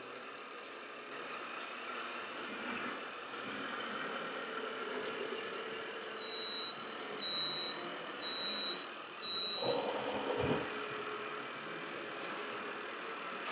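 Scale RC truck sound module giving four short, high electronic reversing-warning beeps, about one a second, followed by a brief lower pitched tone. Under them is a faint steady whir of small model motors.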